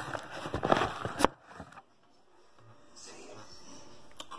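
Handling noise from a handheld camera being moved: rustling and knocks for about the first second, ending in a sharp click, then quiet room tone with a faint hiss.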